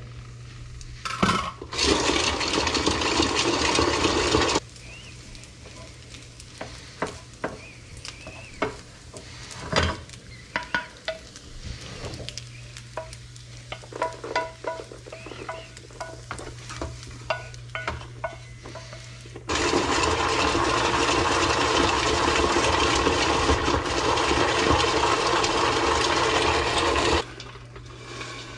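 Popcorn tossed in a pot by shaking it, giving two spells of loud dry rattling and rustling with sudden starts and stops: a few seconds near the start and about eight seconds in the second half. Between them, a wooden spoon scrapes and taps on a skillet and the pot rim with scattered clicks and brief metallic rings.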